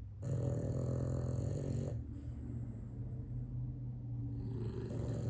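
Pet dogs snoring, one snore following another about every two seconds, low and buzzy; the dogs snore in turn, one echoing the other.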